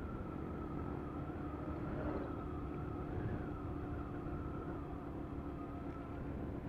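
Rusi Classic 250 motorcycle running steadily at cruising speed, heard from on board with low road and wind rumble. A steady, slightly wavering whining tone rides above the engine.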